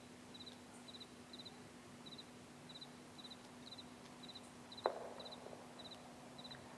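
Faint night ambience: a cricket chirping in groups of three quick pulses, about two chirps a second, over a low steady hum, with one sharp click about five seconds in.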